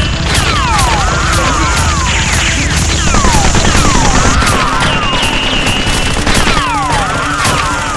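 Dubbed gunfire sound effects, shots a few a second in steady bursts, laid over looping action music with a repeating swooping figure.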